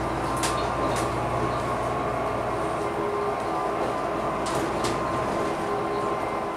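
Interior noise of a Volvo B9TL double-decker bus on the move: its six-cylinder diesel engine and drivetrain running with steady whining tones. The low engine drone drops away about three seconds in. A few short rattling clicks come near the start and again about four and a half seconds in.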